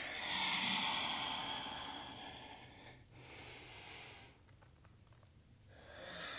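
A woman breathing audibly in slow, long breaths in time with cat-cow yoga movements: one long breath over the first three seconds, a shorter, fainter one after it, and another starting near the end.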